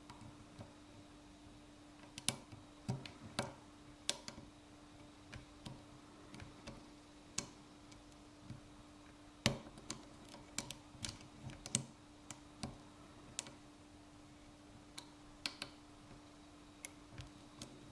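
Metal lock pick clicking and scraping against the pins of a Yale pin-tumbler cylinder, in irregular sharp clicks, over a faint steady hum.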